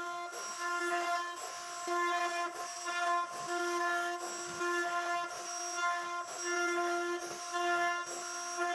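CNC router spindle whining at a steady high pitch as it cuts into wood, its level dipping and swelling every half second to a second as the bit moves through the cut.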